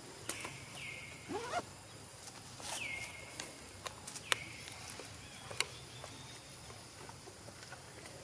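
Animal calls: a short whistled call that drops sharply and then holds a steady note, repeated about every two seconds. There is one rising call about a second and a half in, and a few sharp clicks.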